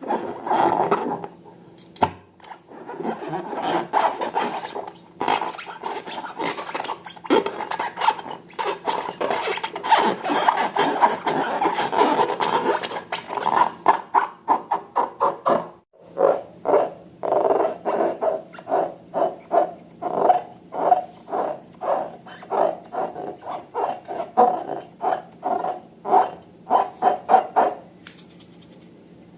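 Slime being worked by hand: a continuous sticky rubbing and scraping for the first half, then a regular run of short squishes, about two a second, that stops shortly before the end.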